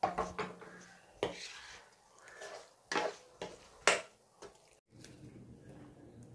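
A spatula stirring chicken pieces in sauce in a nonstick pan: a series of short scrapes and knocks against the pan over the first four seconds, then a faint low hum.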